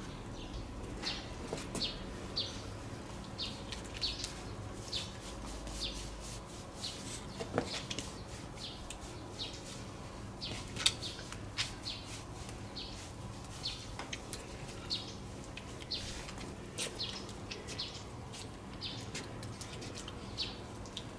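Small birds chirping: short, high chirps repeating about once or twice a second, over a faint steady hum.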